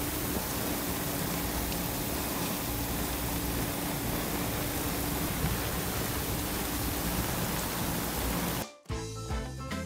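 Rain falling on the sea and on a sailing catamaran under way in a squall: a steady rushing hiss with a faint steady hum underneath. It cuts off suddenly near the end, and music begins.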